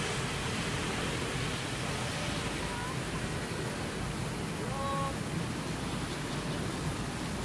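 Steady outdoor background noise, an even hiss-like haze, with a short faint rising pitched sound about three seconds in and another brief faint pitched sound about five seconds in.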